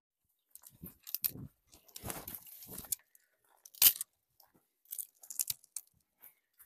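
Footsteps crunching through dry grass, brush and loose stones in an uneven walking rhythm, with a sharper crack about four seconds in.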